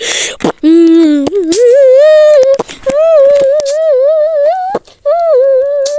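A loud, sustained humming-like vocal tone that wavers up and down in pitch, held in long phrases broken by a few brief gaps.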